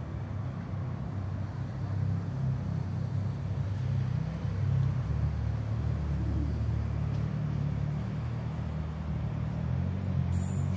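Low, steady rumble of an approaching Class 43 HST diesel power car, growing a little louder as the train slowly draws nearer.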